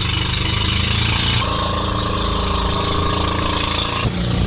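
Boat engine running loudly and steadily, its sound shifting abruptly twice.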